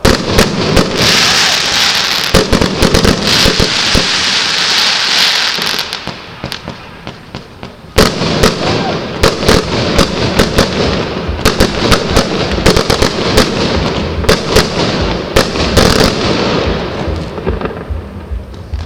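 Fireworks going off: rapid bangs with hissing crackle in the first few seconds, a short lull about six seconds in, then a dense run of bangs that tails off near the end.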